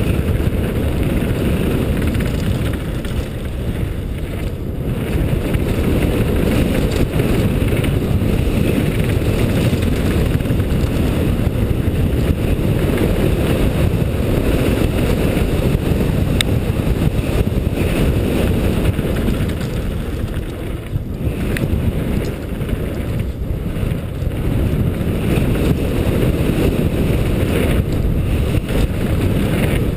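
Steady wind buffeting on a helmet-mounted GoPro's microphone, mixed with the rumble of a downhill mountain bike's tyres on a dirt and gravel trail at speed. The noise dips briefly a few times.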